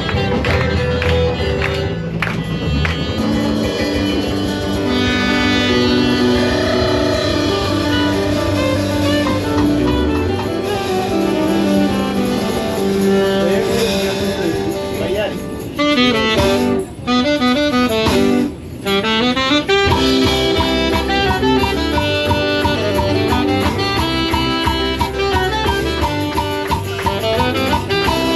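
A small live band playing an upbeat tune in a train carriage, with guitar and a wind instrument carrying the melody. The music cuts out briefly twice about two-thirds of the way through.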